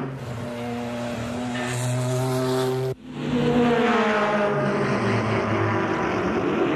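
Group C sports-prototype race car engines running at high revs on the track. The sound breaks off abruptly about three seconds in, then picks up with another car, whose pitch sweeps down as it passes near the end.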